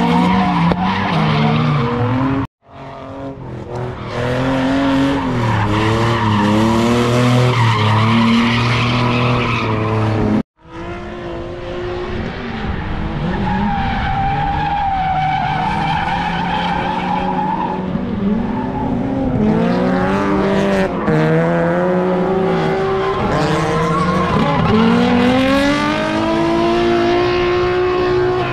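Drift cars sliding: engines revving up and down hard over loud tyre squeal and skidding. The sound cuts out abruptly twice, a few seconds in and about ten seconds in.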